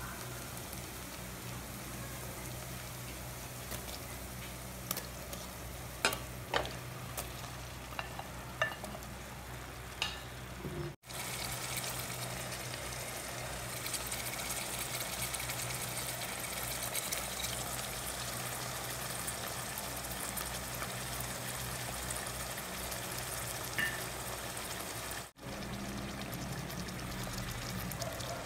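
Pork pieces and sautéed tomato sizzling as they fry in oil in a pot, the sizzle stronger after a brief dropout about eleven seconds in. A few sharp clicks come in the first ten seconds, and a steady low hum runs underneath.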